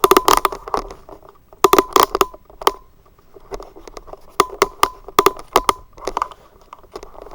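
Handling noise close to the microphone: clusters of sharp clicks, crackles and knocks as objects are picked up and moved about.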